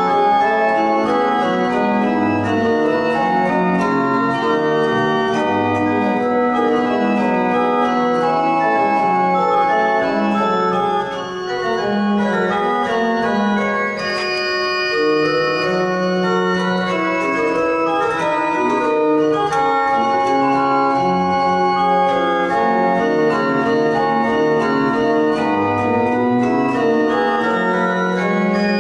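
Historic Bonifazi pipe organ playing a slow piece, several sustained notes sounding together and changing step by step, with a brief dip in loudness about eleven seconds in.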